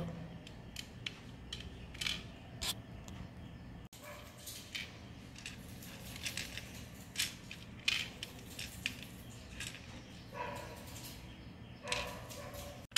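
Small plastic Mastermind code pegs giving a scattering of light clicks and taps as they are picked from the tray and pushed into the holes of the plastic board. Near the end come two faint, brief voice-like calls.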